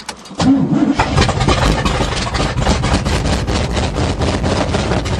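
1977 GMC truck's 400 small-block V8 being cranked by its starter: a short whine as the starter engages, then about four seconds of steady, rhythmic cranking that cuts off without the engine catching. The carbureted engine is starved of fuel after sitting for months, and the owner thinks it isn't drawing much fuel.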